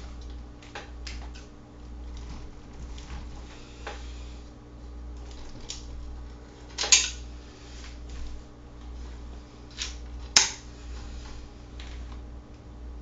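Small hard tools and parts clinking and clattering as they are handled, with two sharper knocks about seven and ten seconds in, over a steady low hum.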